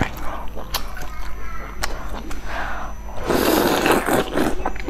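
Close-up eating sounds: wet chewing clicks, then about three seconds in a loud slurp lasting over a second as a piece of pork in chili broth is sucked into the mouth.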